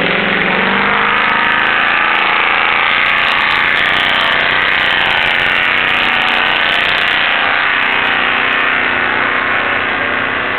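Off-road race vehicles' engines running hard as they drive off from the start, a loud, steady din, with one engine note climbing in the first second.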